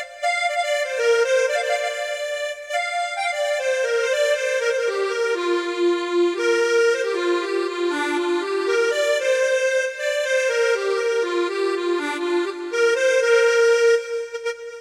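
Roland Fantom X6 synthesizer playing a single-line melody on a reedy, accordion-like patch, moving up and down through a string of notes and settling on a held note near the end.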